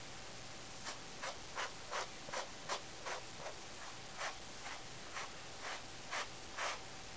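A hand-held brush sweeping through a Siamese cat's coat: a run of short scratchy swishes, about two a second, starting about a second in and stopping near the end.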